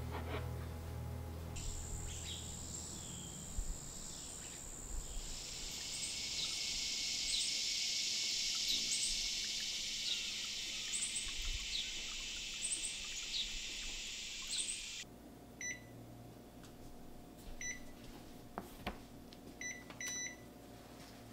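Summer garden ambience: a steady high-pitched insect drone with birds chirping over it again and again. About two-thirds of the way in it cuts off sharply to a quiet kitchen hum, and an oven's electronic control panel gives a few short beeps as its buttons are pressed.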